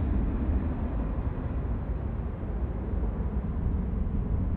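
Airbus A350-941's twin Rolls-Royce Trent XWB turbofans running at low taxi thrust as the airliner lines up on the runway: a steady low rumble.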